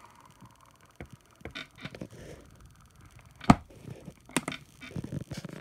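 Hands handling a watch winder box: scattered light clicks and knocks as the case is touched and the lid is closed, with one sharp click about three and a half seconds in.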